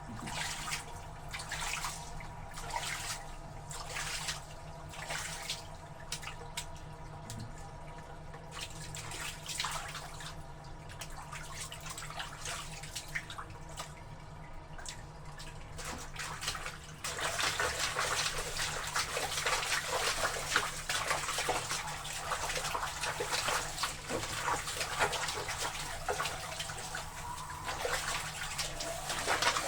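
Wet laundry being trodden underfoot in a tub of water: regular sloshing strokes, turning suddenly into louder, denser, continuous splashing a little past halfway.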